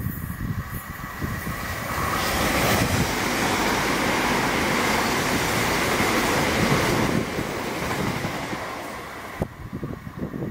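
Southeastern electric multiple-unit train running through the station at speed without stopping: a rushing roar of wheels on rails and air that builds over a couple of seconds, stays loud for about five seconds as the carriages pass close by, then fades as the train draws away.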